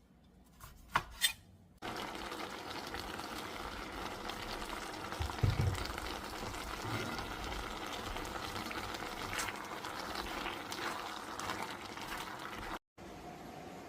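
A couple of sharp clicks, then a steady rush of running water that cuts off abruptly near the end.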